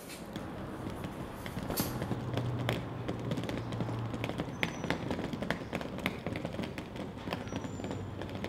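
Footsteps and a wheeled suitcase rolling over paving, heard as a string of irregular taps and clicks, with a low hum for about two seconds near the start.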